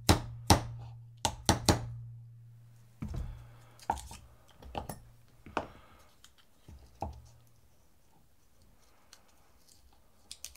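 A hammer tapping a 1/16-inch pin punch to drive the extractor roll pin out of a Stoeger M3000 shotgun bolt set in a bench block: five sharp strikes in the first two seconds. Softer clicks follow as the bolt and its parts are handled, over a low hum.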